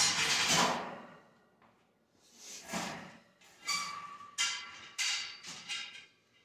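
Chrome wire shelving being assembled: its metal posts and wire shelves clatter, scrape and knock in a string of short clanks and rattles, one leaving a brief metallic ring about four seconds in.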